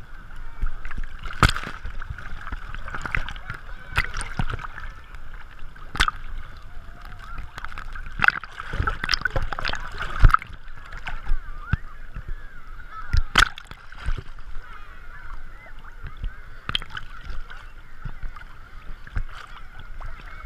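Small sea waves sloshing and splashing against a camera held at the water's surface: a steady muffled wash broken by frequent sharp splashes and knocks on the camera.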